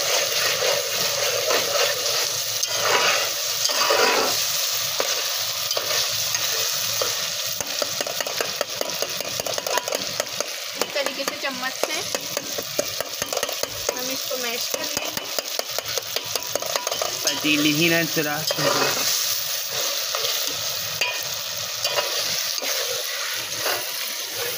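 Tomato masala sizzling steadily in oil in an aluminium pot, with a metal spatula scraping and stirring against the pot's bottom as the masala is fried down.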